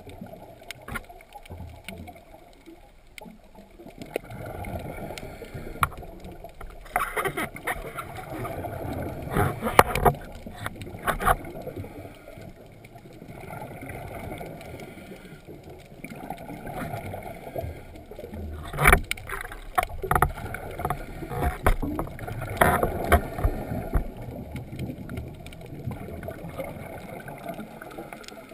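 Underwater sound heard through a camera's waterproof housing: a scuba diver's exhaled bubbles gurgling in bursts every several seconds, with a few sharp clicks.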